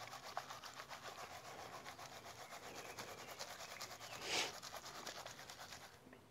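Water and gravel concentrate sloshing and grating in a plastic gold pan as it is shaken back and forth in a quick, even rhythm, with one louder whoosh about four seconds in. It dies away near the end.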